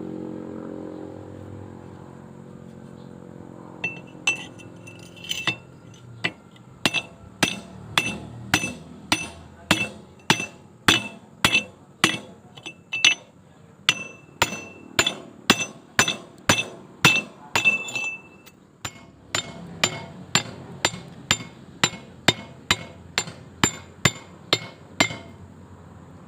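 Hammer blows on steel, about two a second, each with a short metallic ring, while a pin or bushing is being driven home on an excavator bucket during pin and bushing fitting. A low hum fades out in the first couple of seconds before the hammering starts.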